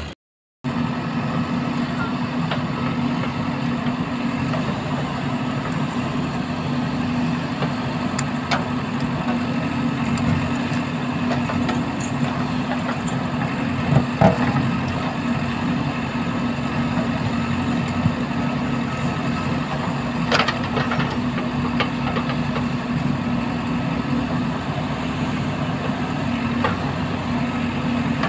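JCB 3DX backhoe loader's diesel engine running steadily under load while its backhoe digs, with a few sharp knocks of the bucket on soil and stones, the loudest about halfway through.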